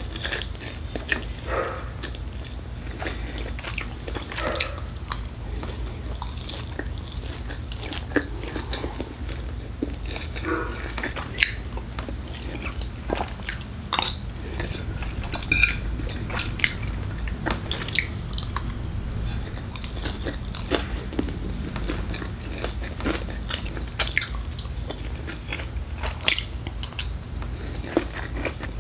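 Close-up eating sounds: chewing and mouth noises as fried instant noodles and rice are eaten, with irregular sharp clicks of a metal fork and spoon against ceramic plates. A steady low hum of an air conditioner runs underneath.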